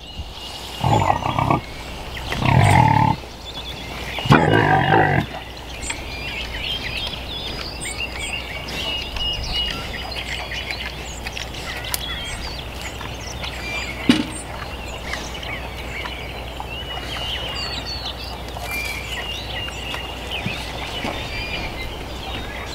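Gloucestershire Old Spot pigs calling out loudly three times within the first five seconds, then songbirds chirping steadily in the background.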